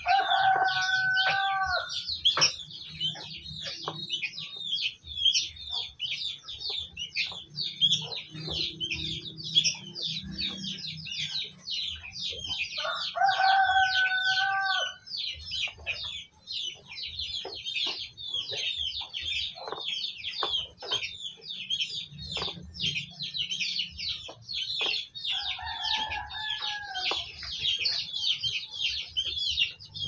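A rooster crows three times, each crow about two seconds long: near the start, about 13 seconds in, and about 25 seconds in. Under it, small birds chirp continuously in a dense, high-pitched chatter.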